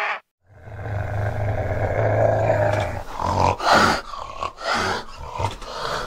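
A small spotted wild cat growling in a low steady rumble, then hissing and spitting in several sharp bursts from about halfway through. A harsh call cuts off at the very start.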